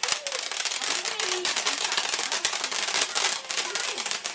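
Consumer firework cake (the "Paparazzi") going off with a dense, continuous crackle of rapid small pops and hiss.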